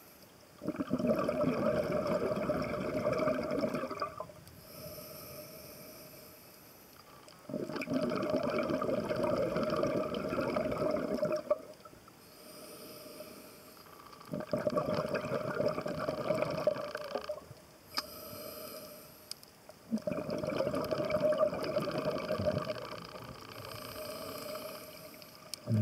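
Scuba diver breathing through a regulator: four long bubbling exhalations of about three to four seconds each, with a quieter hissing inhalation between them.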